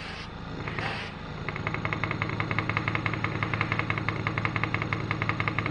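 Small air compressor running with a steady hum and a fast, even pulsing that sets in about a second and a half in, supplying air to a hose-fed spray gun. Short spray hisses come in the first second.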